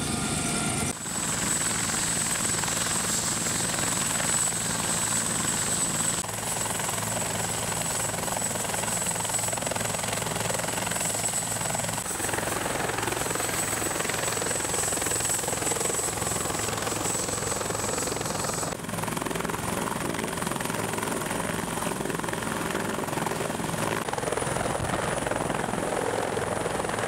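Bell CH-146 Griffon helicopters running on the ground: a steady high turbine whine over the rapid beat of the main rotor. The sound changes abruptly about a second in and again about two-thirds of the way through, where the whine drops away.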